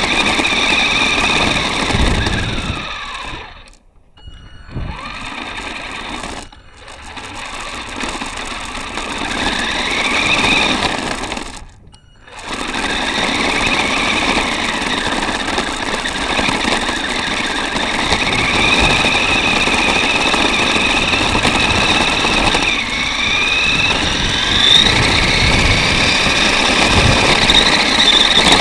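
Radio-controlled 4x4 toy car's small electric motor and gearbox whining close up over a rough, steady drivetrain noise. The whine rises and falls in pitch with the throttle and cuts out briefly twice, about four seconds in and again about twelve seconds in.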